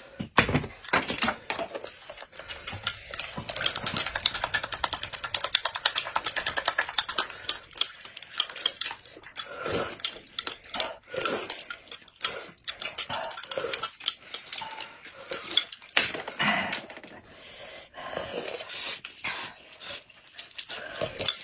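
Small metal spoons stirring and clinking against glass mugs of corn soup, with a run of fast ticking a few seconds in, mixed with slurping sips from the spoons.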